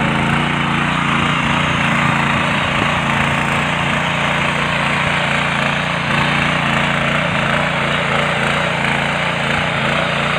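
Walk-behind power tiller (mini rotary cultivator) running steadily under load, its small engine holding a constant pitch as the tines churn through wet soil.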